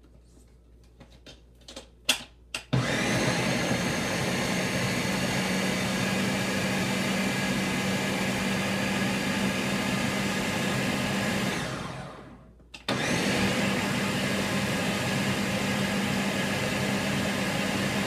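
A few clicks, then a countertop blender starts about three seconds in and runs at a steady pitch, blending a jar of fruit, ice and water into a smoothie. About twelve seconds in, the motor winds down and stops for under a second, then starts again at full speed.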